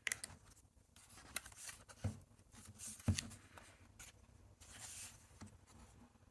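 Soft rustling and scattered light clicks and taps of packaging being handled by hand, with a few sharper knocks about two and three seconds in.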